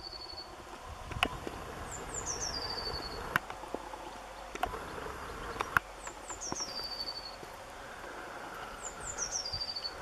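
A small songbird singing a short, high phrase of quick notes that step down in pitch, repeated three times, with a few sharp clicks in between.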